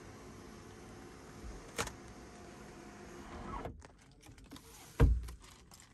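Tata Nexon's electric sunroof motor running steadily as the glass slides, rising slightly just before it stops a little under four seconds in. A click comes near two seconds, and a dull thump, the loudest sound, about five seconds in.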